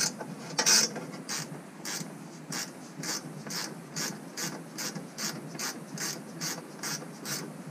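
Hand ratchet wrench clicking in a steady rhythm, about three clicks a second, as it backs off a 10 mm nut.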